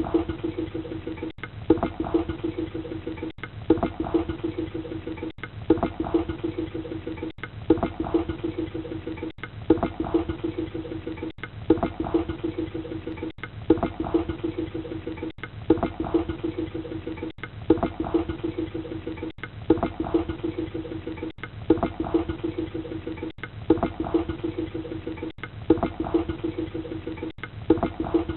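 Water draining down a drain, a pattern of sharp pulses over a steady low tone that repeats about every two seconds, with a brief break between repeats.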